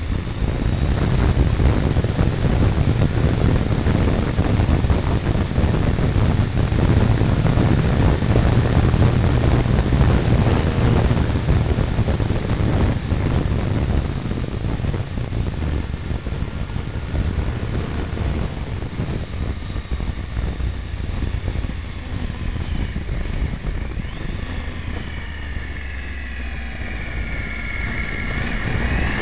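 Triumph Tiger 955i three-cylinder engine running on a downhill ride, mixed with heavy wind rush on a mirror-mounted microphone. Near the end the engine note rises in pitch as the bike accelerates.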